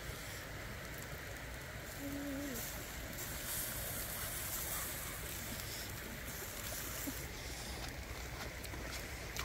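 Shallow river water flowing steadily over rocks, a constant rushing hiss. About two seconds in there is a brief low tone lasting about half a second.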